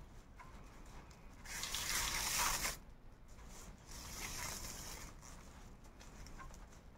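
Raffia yarn being drawn through crocheted raffia fabric while sewing on a bag handle: a loud rustle about one and a half seconds in that lasts about a second, and a softer one around four seconds in.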